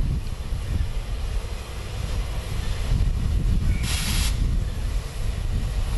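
Steam locomotive 60163 Tornado, an A1 Peppercorn Pacific, releasing a short hiss of steam about four seconds in, lasting about half a second, over a steady low rumble.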